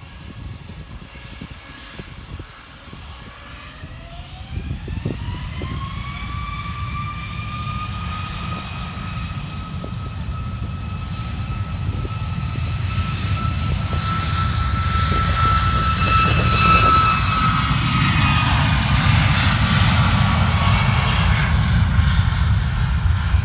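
Boeing 737 MAX 8's CFM LEAP-1B turbofans spooling up to takeoff thrust: a whine climbs in pitch over a few seconds, then holds. A deep roar builds steadily louder as the jet begins its takeoff roll, and near the end the whine drops slightly in pitch under the roar.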